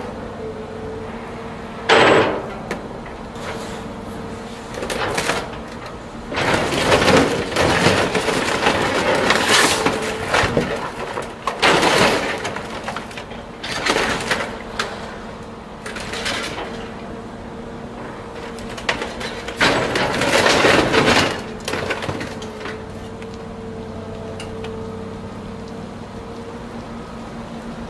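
A Caterpillar material handler's grapple claw crushing the body of a Mercedes-Benz SLS AMG, with repeated loud crunching and cracking of metal and glass in irregular bursts over the machine's steady engine hum. Near the end the crunching stops and only the steady engine hum remains as the flattened car is lifted.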